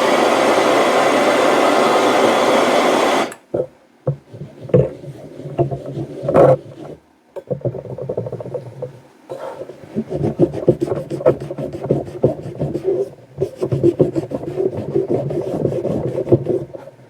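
A steady blowing noise that cuts off suddenly about three seconds in, followed by irregular rubbing and scraping strokes against the steel block, closer together in the second half.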